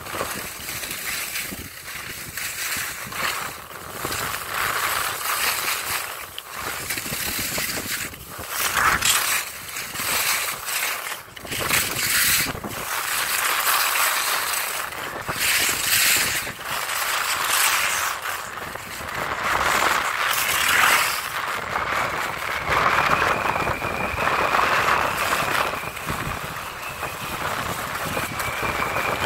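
Skis scraping and hissing over firm snow during a downhill run, the hiss swelling and fading with each turn, mixed with wind rushing over the microphone.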